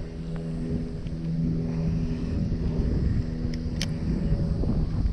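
An engine running steadily with an even, unchanging hum that stops near the end. Two sharp clicks come shortly before it stops.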